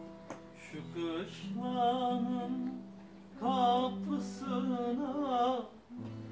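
Bağlama (Turkish long-necked lute) accompanying a sung Turkish folk song. The voice holds two long, wavering phrases, starting about a second in and again about three and a half seconds in, over sustained plucked notes.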